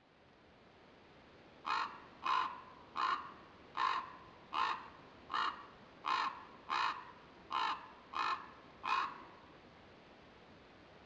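Common raven calling: a series of eleven short calls in an even rhythm, about three every two seconds.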